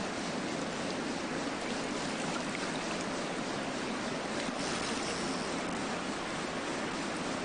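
Steady rushing of fast river water, an even hiss with no distinct events.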